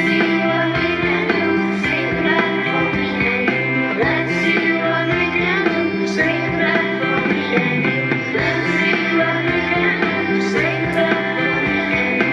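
Recorded pop-style music with guitar, drums and a steady beat, with some singing.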